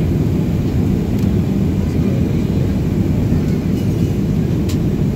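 Jet airliner taxiing at low power, heard inside the cabin: a steady low rumble of the engines and airframe with no change in thrust.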